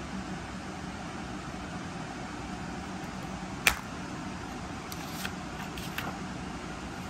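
Plastic Blu-ray case snapping open with one sharp click, followed by a few lighter clicks as the paper inserts inside are handled, over a steady low hum of room noise.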